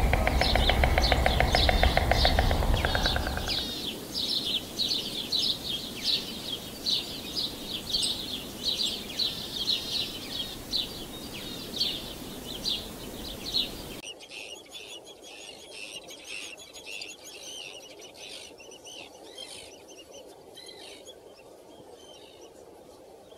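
White stork clattering its bill in a rapid, loud, evenly repeated rattle for about three and a half seconds, over a steady chorus of small birds chirping. About fourteen seconds in, this gives way to fainter, higher bird calls.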